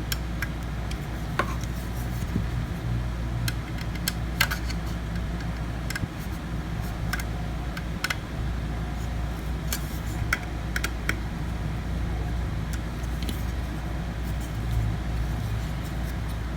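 Small metallic clicks and taps, scattered and irregular, from a screwdriver snugging up the screws that hold a drive caddy onto a laptop solid state drive, over a steady low hum.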